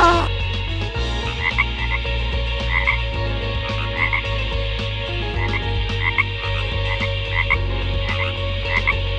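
Frogs croaking: short high calls repeated irregularly over a steady low drone.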